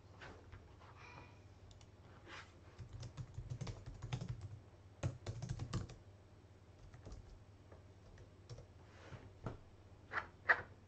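Typing on a computer keyboard: quick runs of key clicks, busiest between about two and a half and six seconds in, then a few scattered keystrokes near the end, over a faint low hum.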